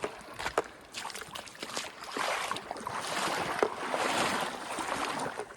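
River water splashing and sloshing, louder from about two seconds in, with a few sharp clicks before it.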